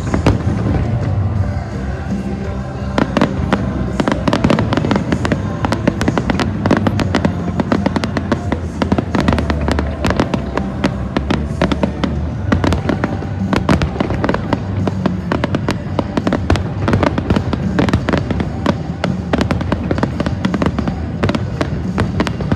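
Aerial fireworks going off in a dense run of sharp bangs, thickening about three seconds in, over music played along with the show.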